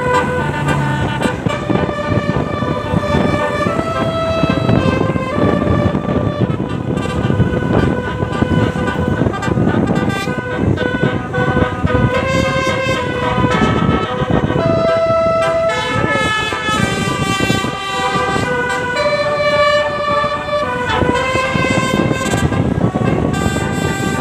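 Bus 'telolet' multi-tone air horn of the Basuri type playing a melody: a continuous run of loud horn notes stepping from pitch to pitch about every half second, over a steady rumble of vehicle noise.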